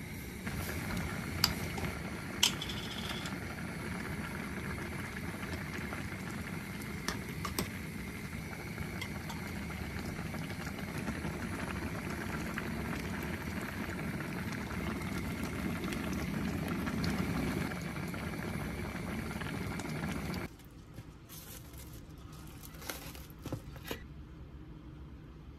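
Food cooking on a stovetop: a steady bubbling simmer with a few light clicks of utensils on cookware. About twenty seconds in it cuts off to a quieter room with a few small clicks.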